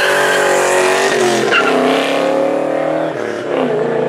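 Ford Mustang convertible of the 1999–2004 body accelerating hard away. The engine's pitch climbs and then drops at a gear change about a second in, climbs again and drops once more near three seconds. There is a brief high chirp about a second and a half in.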